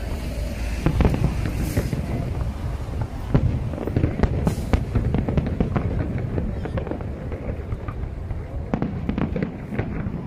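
Fireworks display: aerial shells bursting in a dense, overlapping series of sharp bangs and crackles over a continuous low rumble.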